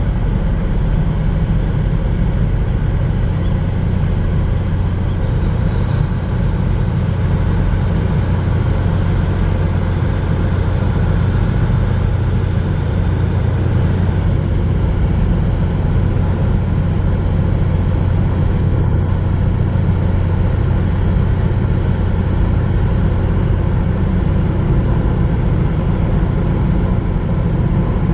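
Large Ro-Ro vehicle carrier's diesel engines running: a steady, loud low drone with an even hum at the bottom.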